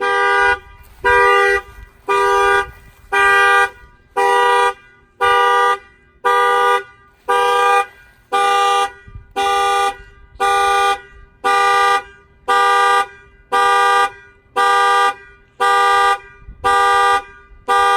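2019 Ram pickup's factory alarm sounding the truck horn in steady pulses, about one blast a second. The alarm has been set off by a newly added shock sensor.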